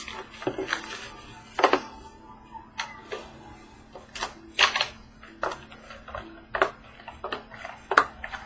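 Hands opening and handling a cardboard trading-card box and its packaging: a run of irregular clicks, taps and crinkles.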